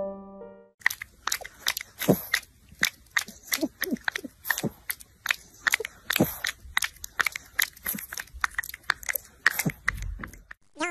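A flat-faced dog's wet mouth clicking and smacking as it licks, in quick irregular clicks, two to four a second. A piano tune fades out just before the clicking starts.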